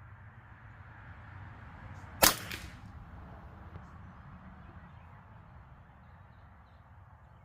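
A single shot from a custom Ruger 10/22 .22 rimfire rifle about two seconds in: a sharp crack with a short echo trailing off, over a steady low background hum.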